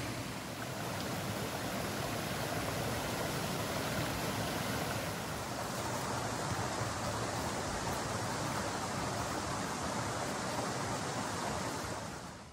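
River water flowing, a steady rush that fades out just before the end.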